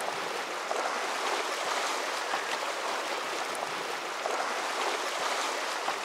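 Water rushing and splashing along a sailboat's hull as it sails, a steady hiss.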